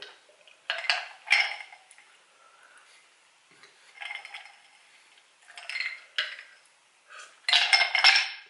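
Dishes and cutlery clinking and knocking on a wooden table in several short bursts, with a glass set down about four seconds in; the loudest clatter comes near the end.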